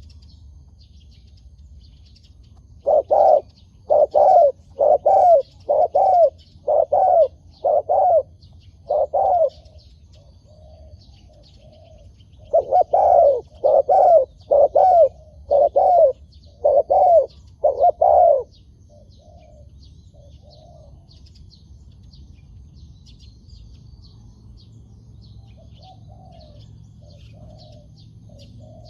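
Spotted doves cooing: two long runs of loud, evenly spaced coos, then fainter answering coos further off in the second half. Small birds chirp thinly and high throughout.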